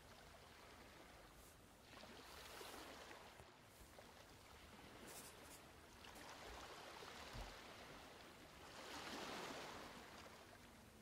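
Near silence: a faint hiss that swells softly twice, with a single low bump a little past the middle.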